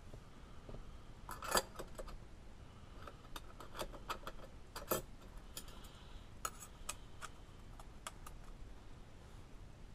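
Irregular light clicks and metallic taps of small parts and tools being handled during a steering hub install, with two sharper knocks about a second and a half in and about five seconds in.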